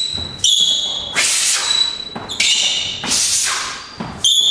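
Punches thrown in a boxing combination, each with a sharp hissing exhale through the teeth: five short, sudden bursts in quick pairs about two seconds apart.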